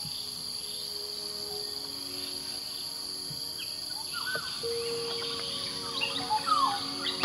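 Tropical forest insects trilling steadily at a high pitch, with soft held music notes underneath. From about four seconds in, birds give short calls, including a couple of downward-sliding whistles.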